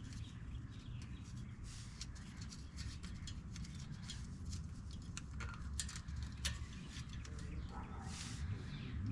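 Light clicks and taps from brake pads and caliper hardware being handled, over a steady low rumble.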